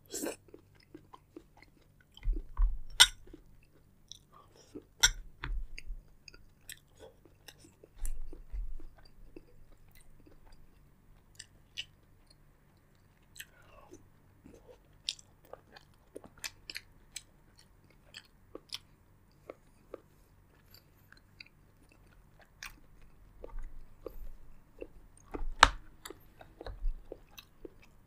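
Close-miked chewing and biting while eating seafood boil: wet smacking, crunches and sharp clicks scattered throughout, with a few louder low thumps, the strongest near the end.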